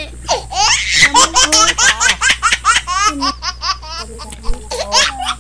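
Hearty laughter in rapid, high-pitched bursts.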